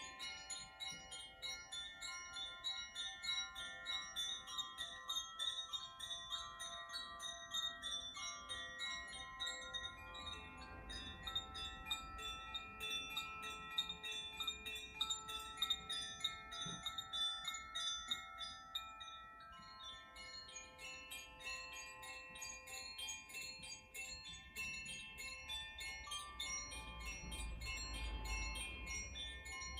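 Koshi chimes being gently moved so the clapper strikes the tuned metal rods inside, in a quick, irregular tinkling, with many overlapping tones ringing on together.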